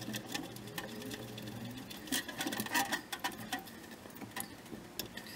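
Irregular light clicks, taps and scrapes of hands working metal pipe fittings on a water heater.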